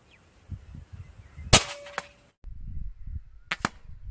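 A single shot from a .177 PCP air rifle: one sharp crack about a second and a half in, followed by a fainter click. About two seconds later come two short, sharp snaps close together.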